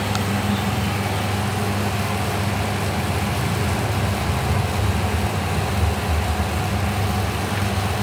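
An electric cooling fan running: a steady low mains hum under an even, airy rush.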